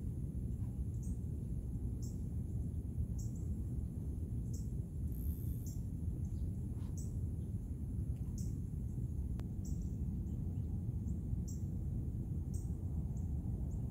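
Outdoor insect chorus: a faint steady high buzz with a short high chirp repeating about every three-quarters of a second, over a steady low rumble.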